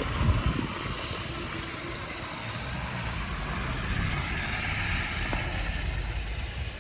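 Wind from a snowstorm buffeting the microphone: an uneven low rumble over a steady hiss.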